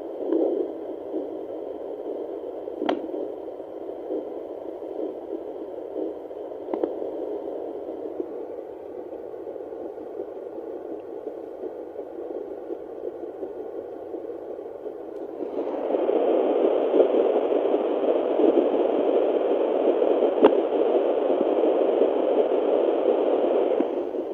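Handheld fetal doppler monitor giving a steady static hiss through its speaker, with a few sharp clicks. The hiss gets clearly louder about two-thirds of the way through.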